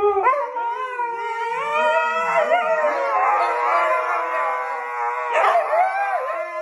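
Dog howling in a long, wavering howl whose pitch rises and falls.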